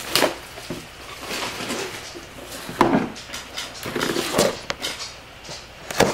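Cardboard hobby box handled on a tabletop: a few dull knocks and scrapes with rustling between them, and a sharp click a little after halfway.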